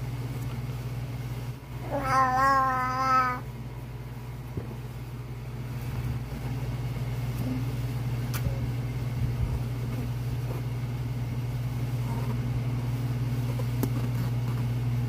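Baby's high-pitched vocalization: one long squeal with a slightly wavering pitch, about two seconds in and lasting over a second, over a steady low hum.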